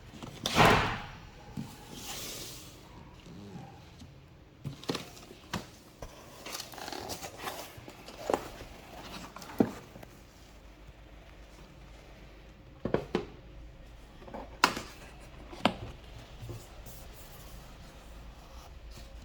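Hands handling a phone box and its packaging: scattered clicks, taps and knocks with short rustles, the loudest a rustle about half a second in.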